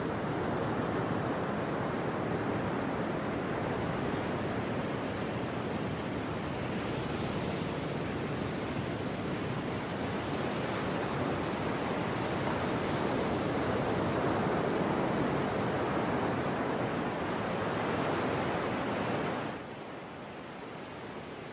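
Ocean surf: a steady rush of breaking waves that swells and eases, dropping to a quieter hiss near the end.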